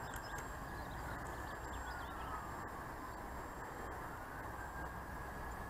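Electric motor of a Vic Smeed Pulstar model plane running under power as it climbs, a faint distant whine that slowly falls and then rises again in pitch, over a steady background hiss.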